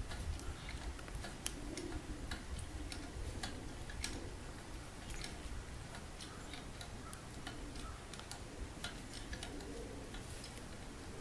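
8-ton hydraulic bottle jack being pumped by hand to raise a hoist boom, its handle and pump giving sharp clicks about two a second, unevenly spaced, over a low steady rumble.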